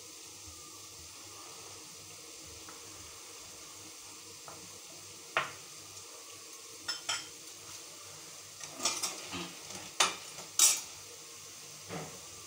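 Steel spoon clinking and scraping against a cut-glass bowl while spreading curd. A few seconds of faint hiss come first, then scattered sharp taps, with a quick cluster of them about nine seconds in.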